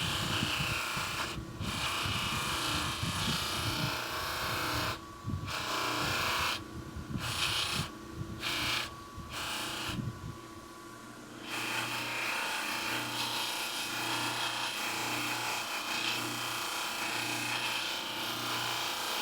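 Bench buffing wheel running while a faucet part is polished against it, the hiss of the wheel breaking off briefly several times as the part is lifted away. From about ten seconds in the wheel runs without the rumble of contact, with a low hum that pulses about once a second.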